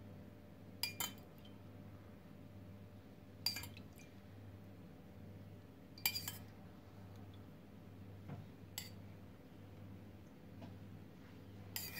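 Metal spoon clinking against a small metal pot as apple syrup is scooped out and spooned over a baked cake, a short ringing clink every two to three seconds, over a faint steady low hum.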